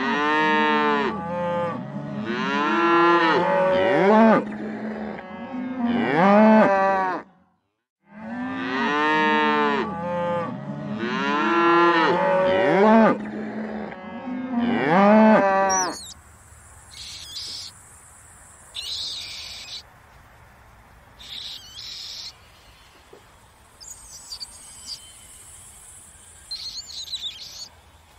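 Cattle mooing: a herd's long, deep calls overlapping in two runs of about seven seconds each, with a short break between them. From about halfway the mooing stops and only fainter, scattered high-pitched chirps remain.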